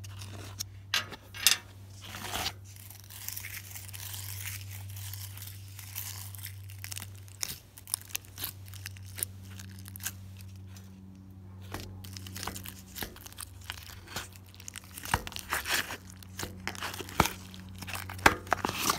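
Slime with sequins mixed in being squished and kneaded by hand in a plastic tub: a continuous run of wet crackles, pops and clicks, with a few sharper snaps, over a steady low hum.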